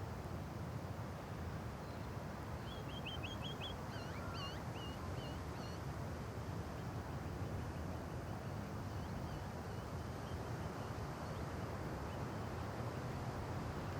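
Light wind over a quiet suburban street, a steady low rumbling haze. A bird sings a quick run of high chirps a few seconds in, with fainter calls later.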